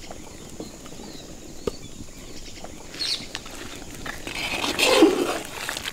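Flour tipped into a large pan of simmering milk and butter, then stirred in with a perforated metal ladle, with small ticks and soft rustling throughout. A louder, scraping swell comes about five seconds in.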